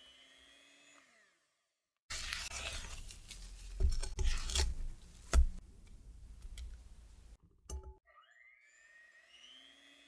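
Cookie dough being mixed in a bowl for about five seconds, rough and scraping, with three sharp knocks against the bowl near the middle. It starts and stops abruptly.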